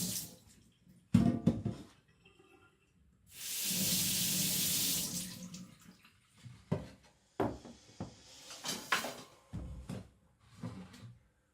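Water running from a tap twice, each time for a second or two, then a string of sharp knocks and clatters.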